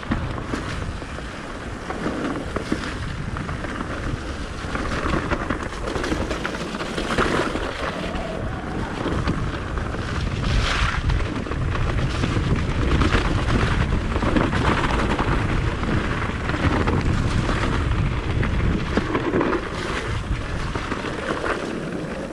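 Wind buffeting the microphone and tyres rumbling over a dirt trail as a Propain Ekano electric mountain bike is ridden downhill. The bike rattles and knocks over bumps throughout.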